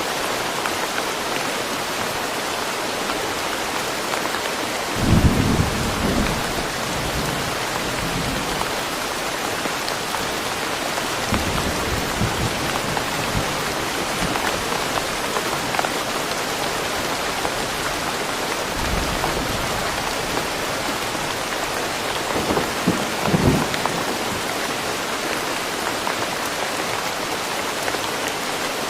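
Steady rain falling, with low rolls of thunder rumbling several times, the loudest about five seconds in and another near the end.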